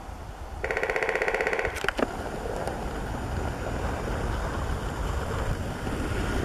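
Male Eurasian three-toed woodpecker drumming on a fir trunk: a single rapid roll lasting about a second, starting a little under a second in, over a steady low rumble.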